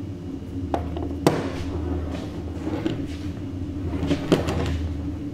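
A few sharp knocks of a metal pistol handled on a wooden tabletop, the loudest about a second in, over a low steady hum.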